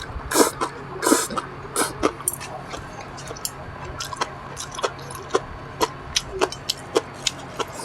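Close-miked eating sounds: chewing a mouthful, with a few louder wet crunches in the first two seconds, then a run of small sharp mouth clicks and smacks.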